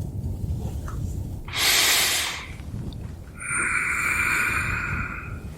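Close-miked breathing over a steady low wind rumble: a short, loud breath about a second and a half in, then a longer nasal-sounding breath from about three and a half to five seconds.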